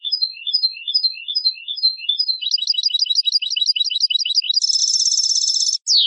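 European goldfinch singing. A short twittering phrase repeats about five times, then comes a fast run of notes, about eight a second, then a buzzy trill about a second long, and the song ends on a single falling note.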